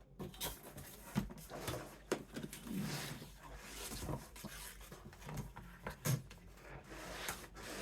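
Retractable utility knife cutting through poster board along a ruler, the blade scraping in uneven strokes with scattered small knocks.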